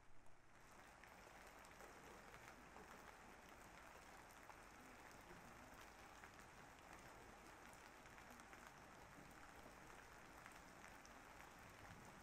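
Faint, steady rain: an even hiss with fine drop ticks, filling in about half a second in.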